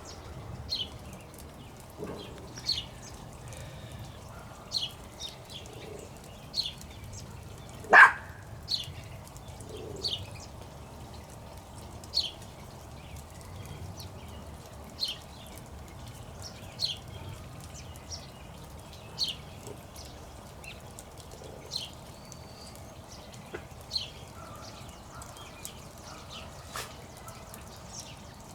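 A dog barks once, sharply, about eight seconds in, over short high chirps that repeat every second or two.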